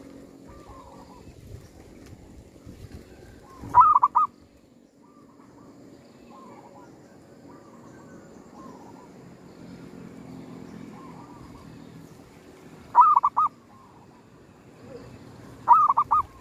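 Zebra dove (perkutut) calling: three loud calls, each a quick run of three or four cooing notes, about four seconds in, near thirteen seconds and at the end, with softer bird notes in between.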